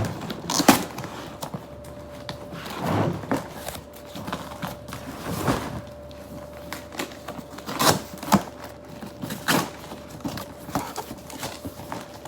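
Unpacking by hand: irregular knocks, clicks and rustles as packets and containers are moved and set down, a few seconds apart, with a faint steady hum underneath.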